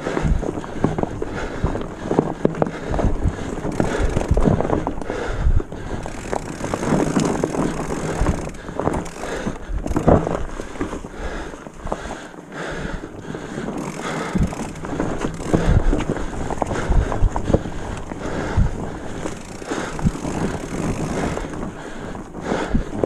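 Mountain bike ridden over rocky, leaf-covered singletrack: tyres crunching over leaves and stones, with frequent knocks and rattles from the bike jolting over rocks and roots, and wind rushing over the microphone.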